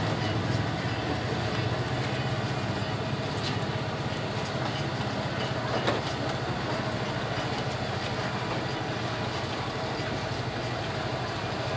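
Steady low hum of an idling engine under street background noise, with one brief knock about six seconds in.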